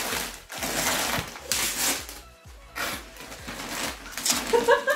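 Christmas wrapping paper being torn and crumpled off a large gift box in a series of noisy rips and crackles. A woman laughs briefly near the end.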